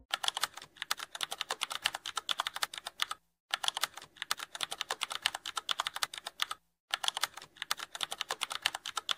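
Fast computer-keyboard typing clicks, in runs of about three seconds with two brief pauses between them.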